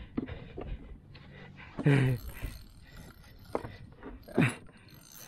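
Two short vocal sounds from a man, about two seconds in and near the end, the second falling in pitch, among scattered light knocks and clicks.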